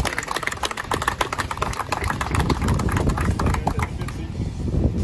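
Small crowd applauding, a dense patter of hand claps that thins out near the end, over a steady low rumble.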